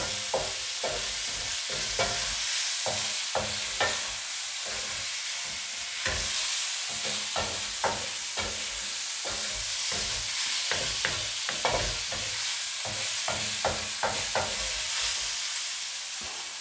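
Fried tofu and onions sizzling in oil in a metal wok while a wooden spatula stirs them, scraping and knocking against the pan about once or twice a second.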